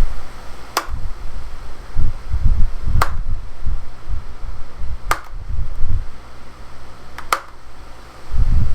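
Electric fan blowing air across the microphone, a gusty low rumble that swells and fades. A sharp click comes about every two seconds.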